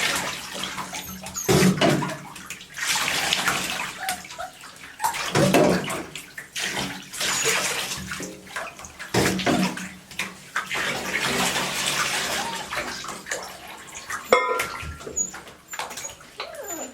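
Water splashing and pouring in a tub as puppies are washed, coming in irregular surges a second or two long.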